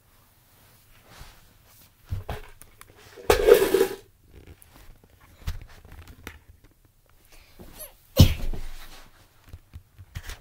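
Two sudden loud breathy bursts about five seconds apart, the first drawn out for about half a second with a thump just before it, and faint rustling and clicks between, like a phone being moved around.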